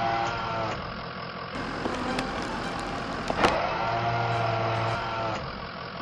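Cartoon sound effect of a forestry forwarder's hydraulic crane at work, a whirring motor hum that starts and stops twice as the grapple lifts logs. A sharp clack comes about three and a half seconds in.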